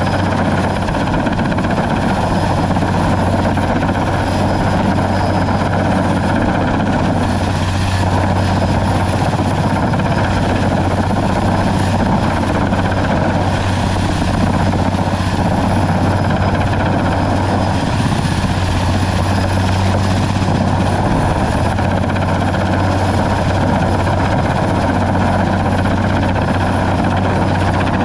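Sikorsky S-58T turbine helicopter hovering overhead with a slung load, its rotor and engines running at a steady, loud, unchanging level.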